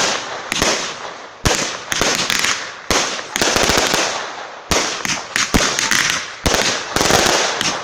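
Firework cakes (batteries) firing: an irregular series of sharp bangs, several a second at times, with a crackling hiss between them.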